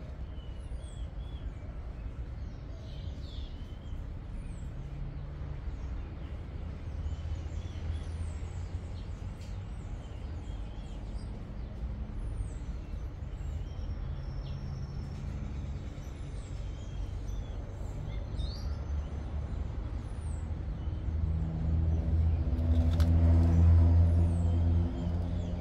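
Low rumble of a motor vehicle engine, swelling louder near the end and then easing, with small birds chirping briefly every second or two.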